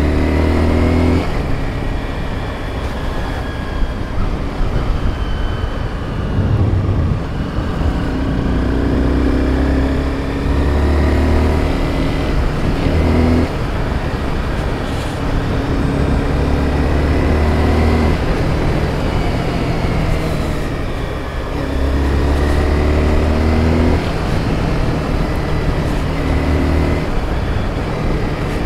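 Honda sport motorcycle's engine running on the move, with wind rush. The engine note climbs again and again as the throttle opens out of the curves and drops back as it eases off, about seven times.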